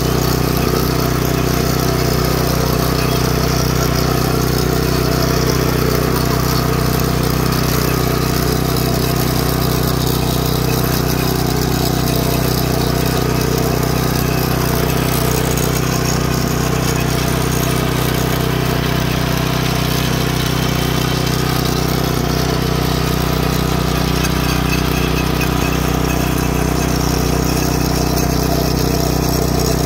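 Yard Machines rototiller's small single-cylinder gasoline engine running steadily under load as its tines churn through the soil, an even, unchanging drone.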